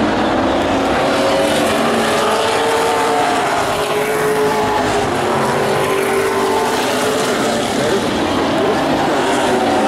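Vintage modified race cars running laps on a short oval, several engines heard at once, their pitches rising and falling as the cars come past.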